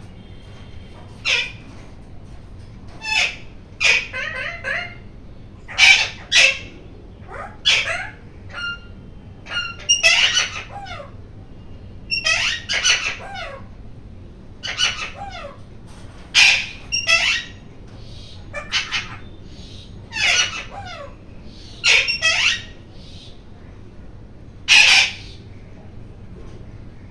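Rose-ringed (ring-necked) parakeet squawking over and over, loud calls coming every second or two, some of them falling in pitch.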